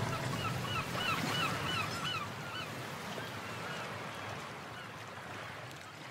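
Sea ambience: a rapid run of short gull calls over a steady wash of surf. The calls thin out after about three seconds as everything fades down.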